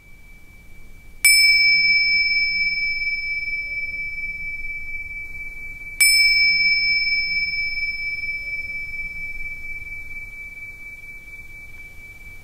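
A small bell with a clear, high tone struck twice, about five seconds apart, each strike ringing on and slowly fading.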